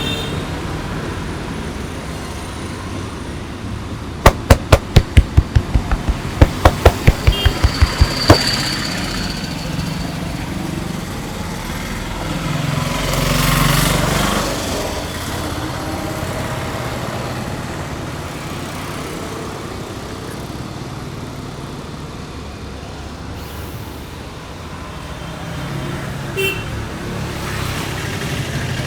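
Massage tapping: hands striking the body in about fourteen sharp slaps, three or so a second, in two quick runs between about four and eight seconds in, over steady street traffic noise that swells briefly near the middle.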